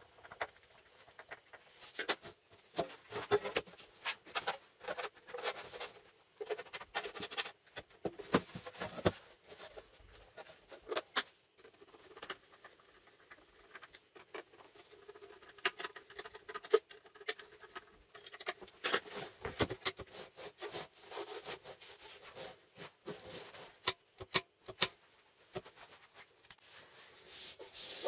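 Gloved hands fitting a thin curved sheet-metal cover onto a small MDF box, making irregular light taps, clicks and scrapes of metal and wood being handled.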